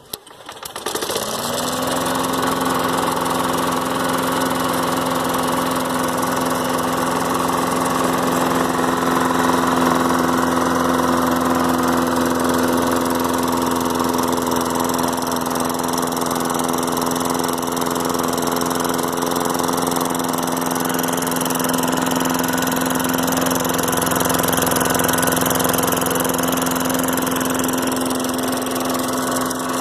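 Lawn-Boy mower's 6 hp Tecumseh engine starting about half a second in and quickly coming up to speed, then running steadily.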